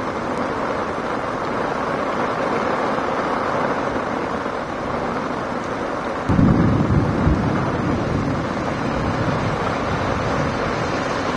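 Heavy rain pouring down, a dense steady hiss. About six seconds in a louder low rumble comes in and then eases back.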